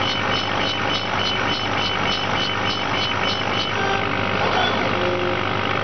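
Laser engraving machine running while it engraves a glass cup on a rotary attachment: a steady mechanical hum with a light ticking about four times a second as the head scans back and forth. The ticking stops a little over halfway through, and a few short motor tones follow.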